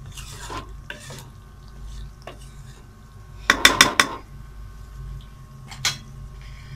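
A spoon stirring and scraping thick chicken korma gravy in an aluminium karahi, with a quick run of sharp knocks against the pan about three and a half seconds in and one more knock near the end.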